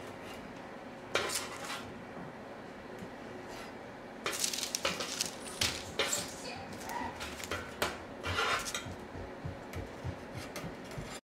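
Metal spatula scraping and clinking against a sheet pan and a wire cooling rack as cookies are lifted and set down: a scattered series of short scrapes and taps, busiest from about four seconds in, cutting off suddenly near the end.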